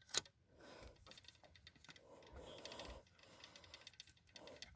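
A click, then a very faint, rapid ticking from a rusted 1987 Wake and Warn 2 smoke detector being tested: its horn barely sounds.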